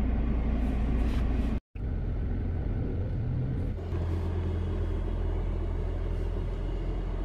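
Low, steady rumble of a car driving on a dirt track, heard from inside the cabin, with a split-second dropout a little under two seconds in.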